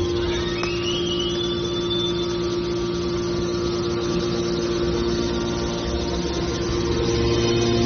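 Hydraulic scrap metal baler running: a steady hum from its hydraulic pump and motor, with a high whine that rises in pitch within the first second and fades out about two seconds in. The sound deepens slightly near the end.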